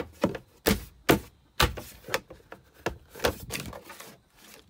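Plastic access panel on a Polaris General XP 1000 being pressed and snapped back into place by hand: an irregular run of sharp knocks and clicks, about a dozen in all.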